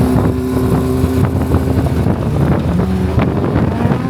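Car engine and exhaust running at a steady speed with a low drone, with a few sharp clicks and some wind on the microphone.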